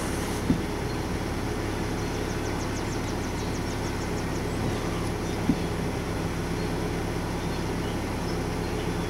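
Steady low mechanical hum inside a car's cabin, with two light clicks, one about half a second in and one about five and a half seconds in.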